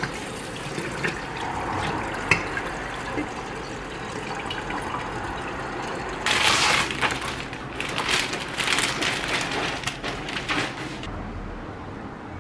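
Water running from a kitchen faucet into a tall glass, filling it. About six seconds in it turns louder and splashier, then it stops near the end.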